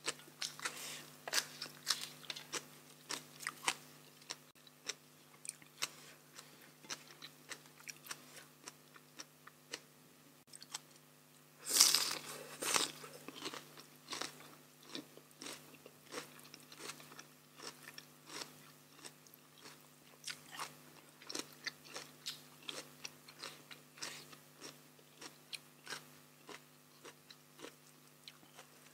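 A person chewing and biting food close to the microphone, with many short wet clicks and smacks from the mouth and one loud crunchy bite about twelve seconds in. The food is papaya salad eaten with fresh vegetables and rice noodles. A faint steady hum runs underneath.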